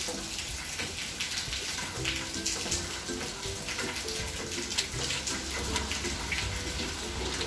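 Water running and splashing in a small tiled wash area as a wet dog is bathed, with background music of short melodic notes playing over it.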